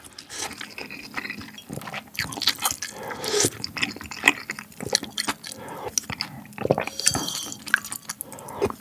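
Close-miked eating sounds: chewing and sipping spicy ramen broth, with the wooden spoon dipping in the broth and clicking against the ceramic bowl in short, scattered clicks.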